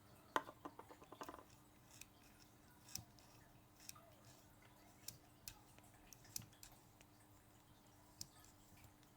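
Faint metallic clicks from a Leatherman Wave Plus multitool being worked by hand, its freshly oiled tools and pivots moved open and shut. A quick run of about eight clicks comes in the first second and a half, then single clicks every second or so.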